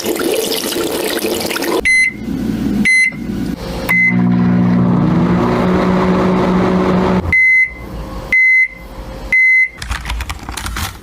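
An electronic appliance beeping and running: three short high beeps about a second apart, a steady hum for about three seconds that stops abruptly, then three longer beeps.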